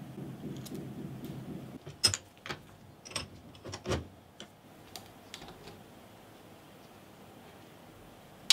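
Gloved hands working an old steel pipe cutter in a bench vise: a low rubbing at first, then a run of sharp metal clicks and knocks about two to four seconds in, a few faint ticks, and one sharp click at the end.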